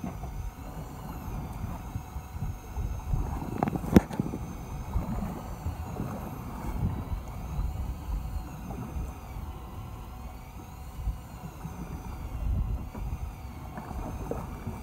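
Wind buffeting the microphone over choppy sea on a small fishing boat, an uneven low rumble that rises and falls, with one sharp click about four seconds in.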